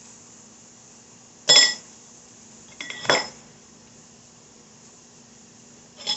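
A metal utensil clinking against a dish of beaten egg: a sharp ringing clink about a second and a half in, a quick double clink around three seconds, and another near the end.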